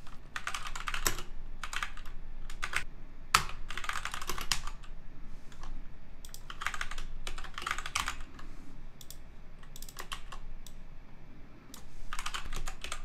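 Typing on a computer keyboard: several quick runs of key clicks separated by short pauses, with one sharper click a little over three seconds in.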